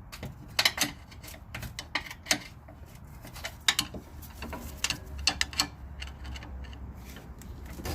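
Screwdriver scraping and clicking against the rubber sway bar bushing and metal around it as the bushing is turned in its seat, in irregular taps and scrapes.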